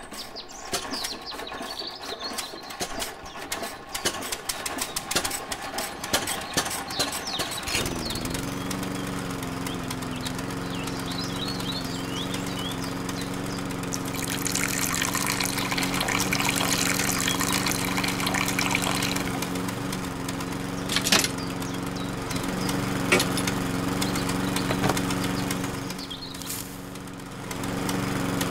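Small electric motor inside a toy model engine, with scattered clicks before it starts about eight seconds in, then running with a steady hum as it drives a belt-driven toy tomato juicer. A hissing noise rises for several seconds in the middle, and there are a couple of sharp clicks and a brief dip in the hum near the end.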